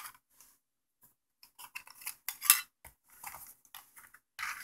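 Plastic battery covers being pried off the backs of TI-30 calculators with a small screwdriver: a run of light clicks and scrapes, the loudest about two and a half seconds in.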